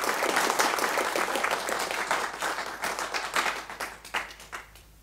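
An audience applauding, the clapping thinning out and dying away about four and a half seconds in.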